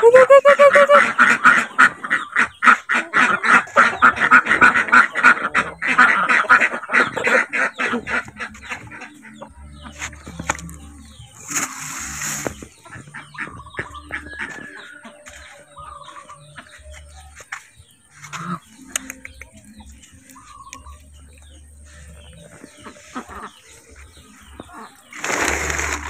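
Ducks quacking loudly in rapid, overlapping calls for the first several seconds, then dying down to a few scattered calls, with two short bursts of noise about twelve seconds in and near the end.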